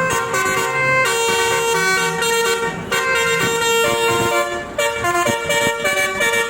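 Basuri telolet horn, a melody-playing bus horn, sounding a tune as a run of held horn notes that change pitch in steps.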